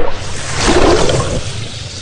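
Water rushing and splashing: it starts abruptly, swells into a louder surge about half a second in, then settles into a steady flow by a second and a half.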